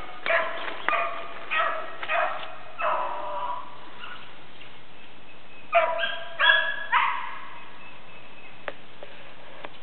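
Beagles baying on a rabbit's trail: a run of short pitched bawls, then a pause of about two seconds and three more near the middle, over a steady hiss.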